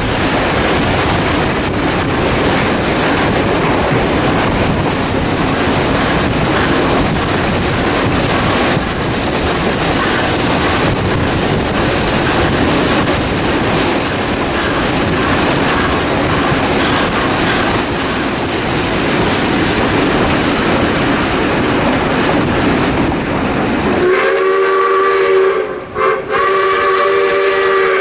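Steam-hauled passenger train running at night, heard from on board as a steady, loud noise of the train underway. About four seconds before the end, the steam locomotive's whistle sounds two blasts of about two seconds each.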